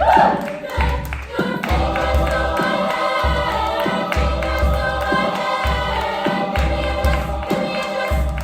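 School choir singing in parts, with a low beat pulsing underneath roughly once a second.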